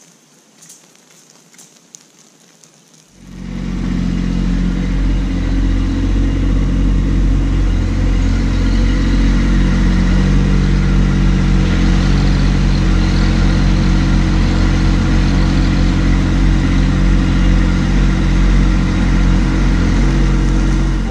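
Kubota B2601 compact tractor's three-cylinder diesel engine running steadily and loud, close by, coming in abruptly about three seconds in while the tractor trickles crushed stone out of its front-end loader bucket.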